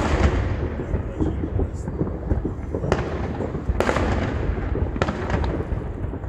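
Many fireworks going off across a town at once: a continuous din of booms and crackling, with sharper bangs at the start and about three, four and five seconds in.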